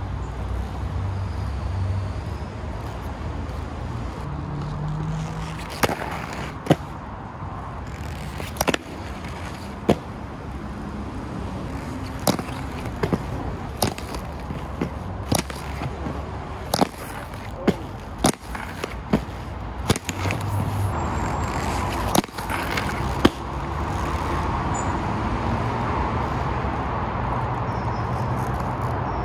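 Inline skate wheels rolling on concrete, with many sharp, separate clacks of the skates striking and landing on the ledges and ground, over a steady low rumble. The rolling noise grows louder near the end.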